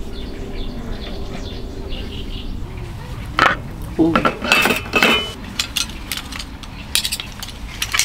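Cutlery and dishes clinking during a meal: several sharp clinks from about halfway in, a couple of them ringing briefly, over faint murmured voices and a steady background hiss.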